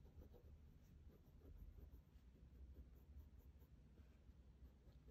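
Faint scratching of a fine-nibbed vintage Lady Sheaffer Skripsert fountain pen writing on paper, a quick run of short strokes and loops. The nib is a smooth one, giving very little scratch.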